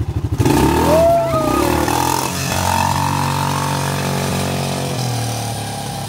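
Quad bike (ATV) engine revving up from idle about half a second in as it pulls away, then running steadily and slowly fading as it drives off down the gravel track.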